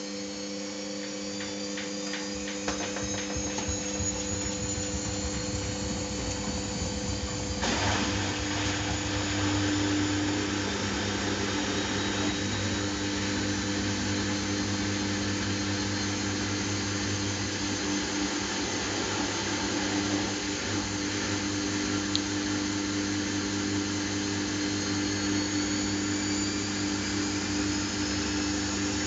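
Samsung WF70F5E0N4W front-loading washing machine in its intermediate spin. A high motor whine rises in pitch and the sound grows louder over the first several seconds as the drum speeds up. The drum then spins on steadily with a constant hum, with a brief surge of noise about eight seconds in.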